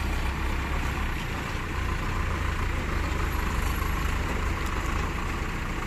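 Diesel engines of a backhoe loader and a farm tractor running steadily, a continuous low rumble.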